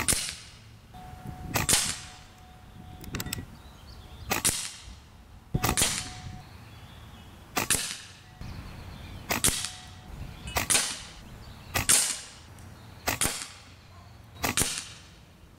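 AEA Precision SF Standard .22 PCP air rifle firing a string of about eleven shots, roughly one every second and a half, each a sharp crack that dies away quickly.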